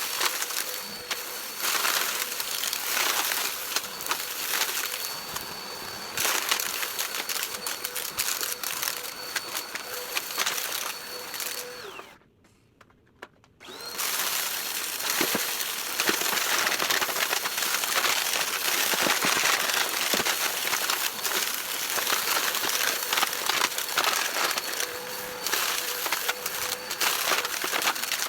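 Vacuum cleaner running with a steady high whine while crunchy debris crackles and clicks up through it. About twelve seconds in the motor winds down to near silence, then spins back up a second and a half later and the crunching resumes.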